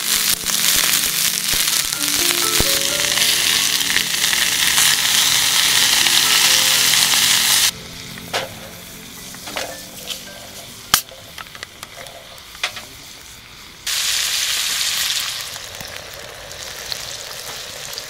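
Pork chunks sizzling loudly in a cast-iron skillet over a wood fire. The sizzle cuts off about eight seconds in, leaving a few light clicks and taps. A softer sizzling hiss returns about fourteen seconds in as the meat simmers in liquid in the pan.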